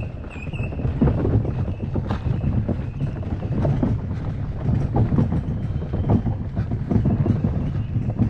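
Footsteps on a dirt trail at a walking pace, about one a second, under a heavy rumble of wind and movement on the microphone.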